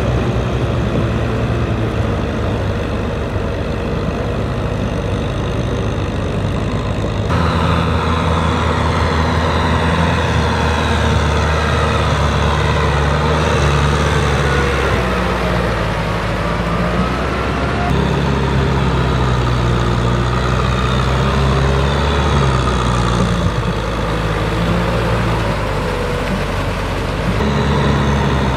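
Kubota tractor diesel engine running steadily under load, pulling a rotary tiller through mud. The engine note changes abruptly about seven seconds in and again near the end.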